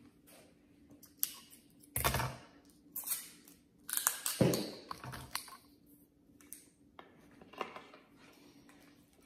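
Plastic clacks, clicks and rustling from a new angled broom's plastic head and metal handle being handled and fitted together. The sounds are irregular, loudest about two seconds in and again around four to five seconds in.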